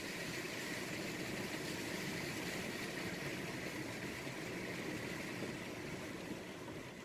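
A car's engine running slowly, heard from inside the cabin as it pushes through deep floodwater, under a steady hiss of water and rain. The water is deep enough to wreck the engine.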